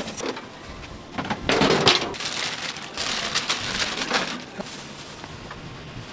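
Food sizzling and crackling as it cooks at a street-food stall, a dense hiss that swells and eases, loudest about two seconds in.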